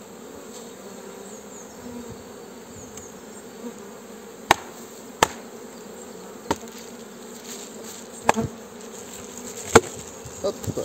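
Honeybees humming steadily at an open hive, with about six sharp wooden knocks in the second half as hive frames and a divider board are handled in the box.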